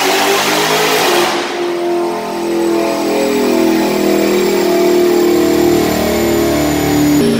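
Supercharged 6.2-litre Hemi V8 of a Dodge Charger Hellcat at the top of a full-throttle dyno pull, its note still climbing. About a second in the throttle closes, the loud rush drops away, and the car coasts down on the rollers with the engine running lower and a high whine slowly falling in pitch. There is a small step down in pitch near the end.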